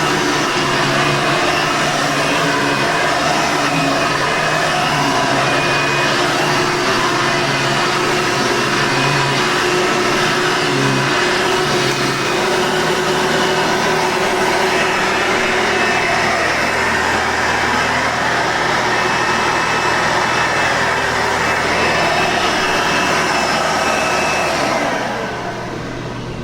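Hoover Convertible Soft N Light upright vacuum cleaner with a 7-amp motor running steadily at full speed. Near the end it is switched off and the motor winds down.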